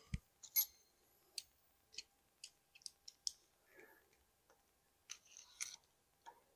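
Faint, scattered small metallic clicks and ticks of button head cap screws and a hex driver being picked up and handled, with a soft knock right at the start and a short cluster of clicks about five seconds in.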